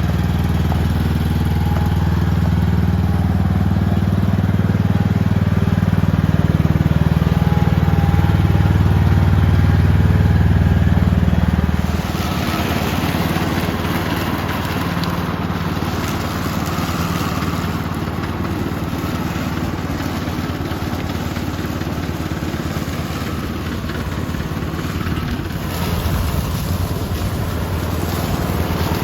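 Lawn mower engine running steadily while mowing tall grass. About twelve seconds in the sound changes: the low engine hum drops and a rougher, hissier sound takes over.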